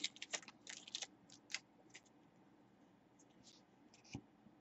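Trading cards being handled, slid and flicked through by hand: a few short, soft rustles in the first second and a half, then near silence with one faint tap near the end.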